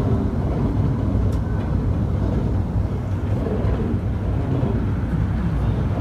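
Steady low rumble of a Joetsu Shinkansen train running, heard from inside the passenger cabin.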